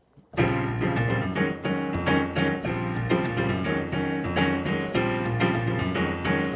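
Keyboard playing the piano introduction to a gospel song: repeated chords over held bass notes, starting about a third of a second in, with the bass changing every couple of seconds.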